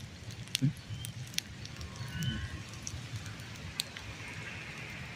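Campfire crackling faintly, with scattered sharp pops.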